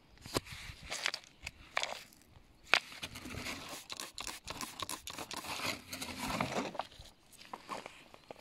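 Water squirted from a hand spray bottle onto a rock, several short hisses, after a few sharp clicks of stones knocking on riverbed gravel.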